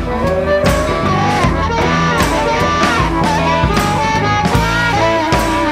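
Background music: an instrumental stretch of a band song with a steady drum beat and a bending lead melody line.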